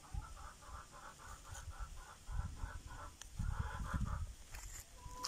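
A chicken clucking in an even run of short calls, about three a second, with low thumps and rustling from about two seconds in. A longer drawn-out call comes near the end.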